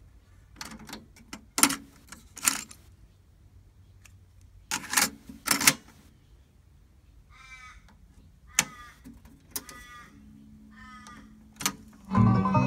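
Mechanical clicks and clunks from the piano-key transport buttons and cassette door of a Sony TC-K15 cassette deck. A bird caws harshly three times in the middle. Near the end a key goes down and music starts playing back from the tape.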